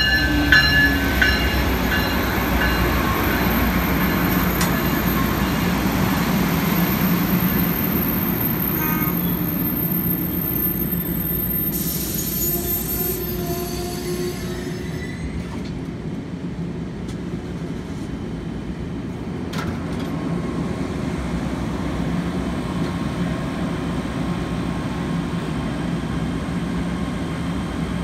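Amtrak passenger train passing close by at speed: the Siemens Charger diesel locomotive's high whine fades in the first couple of seconds, then the coaches roll past in a steady rumble of wheels on rail.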